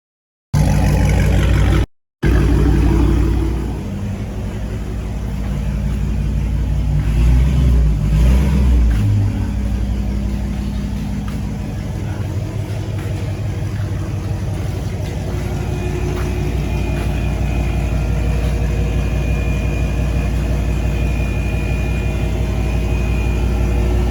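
Car engine with its catalytic converters removed (cat delete), running with a loud exhaust rumble as the car is driven in at low speed. It swells with a couple of throttle blips about seven to nine seconds in, then settles back to a steady low-speed run.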